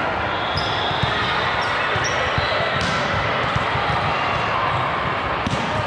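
Volleyball gym during play: a steady din of crowd chatter with balls thudding on the hardwood court and a few short, high squeaks from sneakers.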